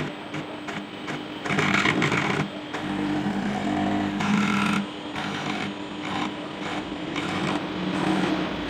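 CNC milling machine running on acrylic, its motors humming at pitches that shift every second or so over a rasping cutting noise.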